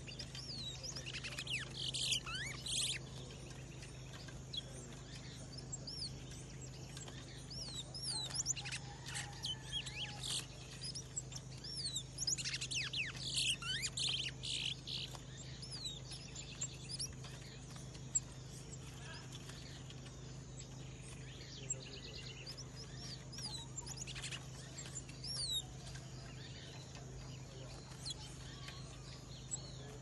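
Caged towa-towa finches singing: many quick, sharp chirps that rise and fall, with two louder, busier bursts of song about a second in and about twelve seconds in, over a steady low hum.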